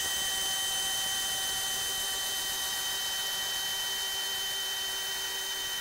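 DeWalt DCD997 cordless brushless hammer drill in plain drill mode on its lowest speed setting, boring a 3/4-inch spade bit into a wooden beam: a steady motor and gearbox whine under load, with no hammering rattle.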